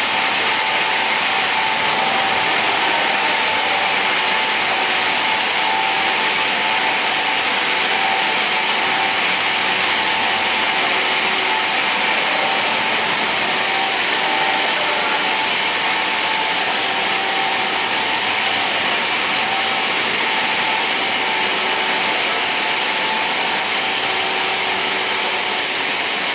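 Running optical fibre cable production-line machinery: a steady, even hiss with a constant mid-pitched whine that holds unchanged throughout.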